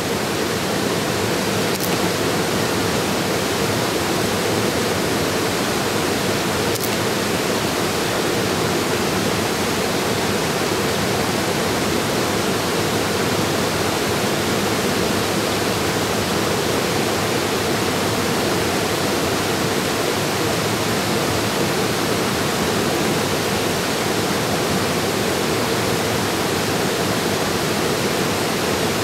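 Low creek cascade spilling over travertine ledges into a pool: a steady, unbroken rush of falling water.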